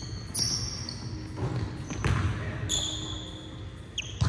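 A basketball bouncing several times on a hardwood gym floor, with sneakers squeaking on the court in between.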